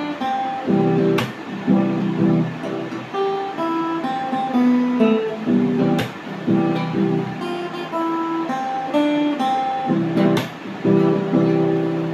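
Acoustic guitar played solo: strummed chords mixed with picked melody notes, the chord changing about once a second.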